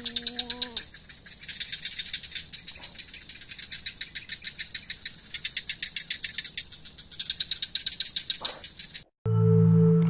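Night insects chirping in rapid, rhythmic pulses over a steady high trill, with a short low-pitched call near the start. About nine seconds in the sound cuts out and a loud, sustained bell-like chime with a low hum takes over.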